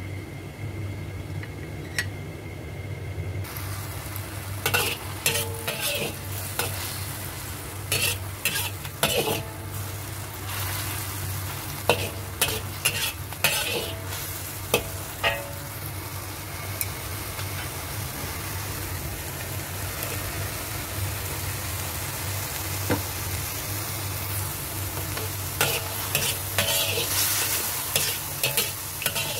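Mushrooms and beef strips sizzling in a hot wok while a metal spatula stirs them, scraping and clanking against the wok in several quick runs. The sizzling starts a few seconds in, and a steady low hum runs underneath.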